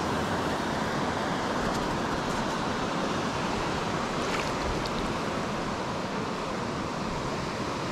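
Steady rushing of river current around a wading angler, an even unbroken wash of water noise.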